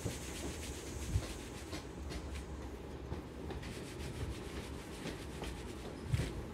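Towel rubbing against wet hair in repeated strokes over a low steady rumble, with a soft thump about a second in and another near the end.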